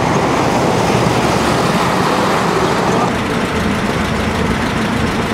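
Army truck's engine running as it drives past on a wet road, then, after about three seconds, the engines of a column of tracked armoured vehicles idling.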